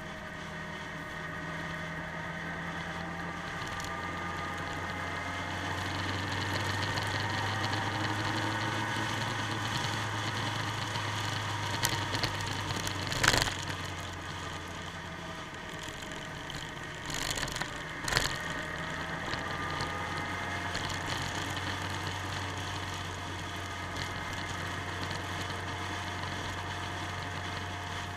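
Motorcycle engine running on the move, its pitch slowly rising and falling with the revs. Sharp knocks come about halfway through and again a few seconds later.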